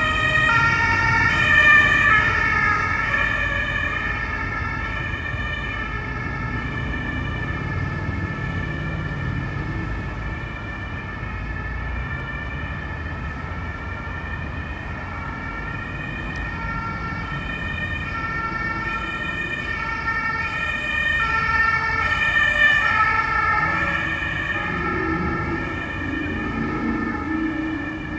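Emergency vehicle siren sounding continuously, switching back and forth between two pitches, over a low traffic rumble. It swells louder about two seconds in and again near the end.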